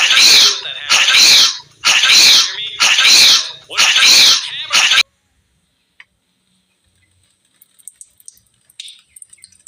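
A fit of loud, harsh coughs, about six in a row, one roughly every 0.7 seconds, which stops abruptly about five seconds in. A few faint clicks follow near the end.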